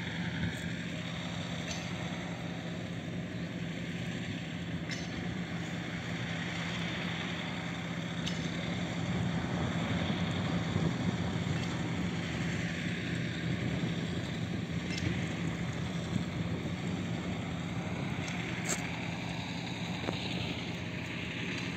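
An engine running steadily with a constant low hum, joined by a few faint clicks.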